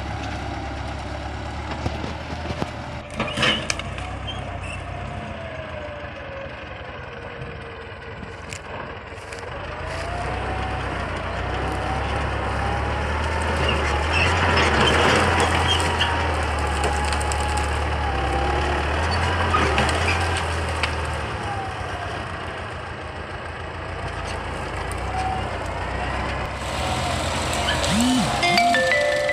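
Diesel engine of an old Russian tractor running steadily under load as it pushes its front blade through bushes, its pitch rising and falling slowly. Louder, with crackling of brush, about halfway through.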